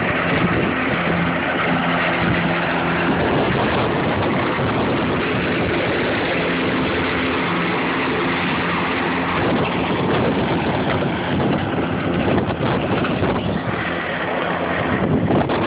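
Battery-electric John Deere zero-turn mower running with a steady hum from its electric motors over a broad rush of noise. The hum fades about two-thirds of the way through as the mower moves away.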